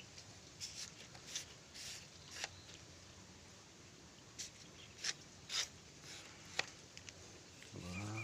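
Scattered short rustles and light knocks, about one a second, from something being handled close by.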